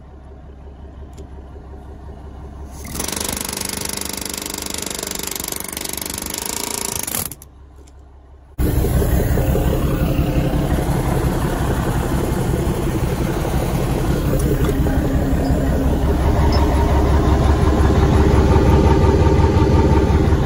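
Dump truck's diesel engine running slow at first, with a hiss for about four seconds starting about three seconds in. About eight and a half seconds in, the engine comes up to a steady, much louder run, likely to drive the hydraulic pump for the dump bed's hoist cylinder, and it climbs slowly toward the end.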